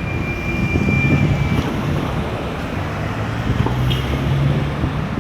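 Street traffic: a vehicle engine running with a steady low hum, and wind buffeting the microphone. A thin high whine sounds briefly in the first second or so.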